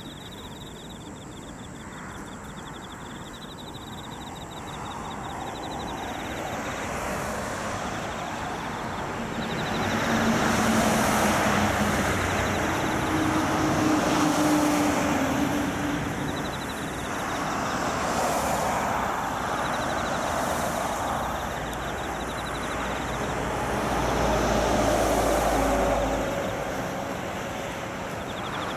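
Expressway traffic passing: several vehicles one after another, each swelling and fading with tyre and engine noise. The loudest passes come in the middle and near the end, one with a deep rumble like a heavy truck.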